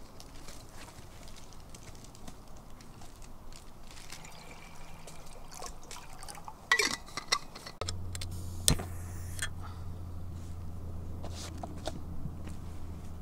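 Water poured from a stainless steel bottle into a metal cup, followed by a few sharp metallic clinks and knocks about halfway through. A steady low hum sets in just after.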